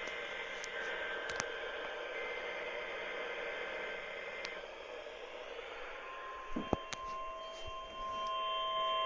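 NOAA Weather Radio received on a software-defined radio: a hiss of static with faint steady tones under it, then steady alert tones, the strongest near 1 kHz, start about six seconds in and get louder near the end. This is typical of the weekly test of the weather radio warning alarm tone.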